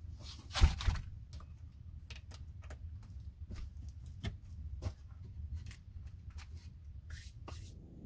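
A rough wooden plank door or board panel being pulled and handled, with its wire fastener being twisted: scattered knocks, clicks and rattles of wood and wire. A louder knock and scrape comes just under a second in, and brushing scrapes come near the end.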